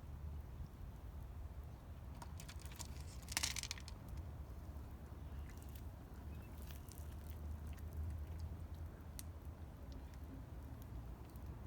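A cat eating its food: scattered small clicks of chewing, with one louder crackle about three and a half seconds in, over a steady low hum.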